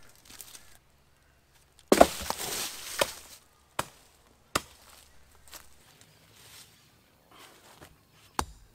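Small shovel digging into soil and leaf litter: a loud scraping run of strokes, then single sharp chops into the ground. Near the end, a rock knocks against stone.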